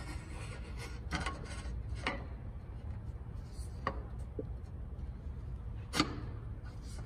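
Sharp taps and knocks, about five spread out, as a stainless steel inlay is worked into its routed recess in a white oak door until it seats flush.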